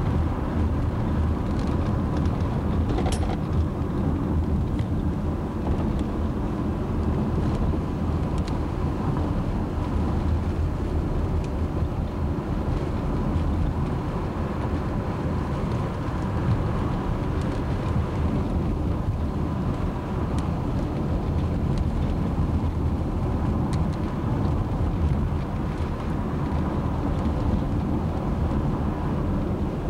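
Steady low rumble of a car's engine and tyres on the road, heard from inside the moving vehicle, with a few small clicks and rattles.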